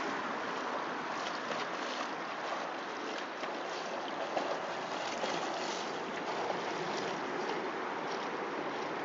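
Steady rush of lake water with small splashes, from a dog and a person swimming.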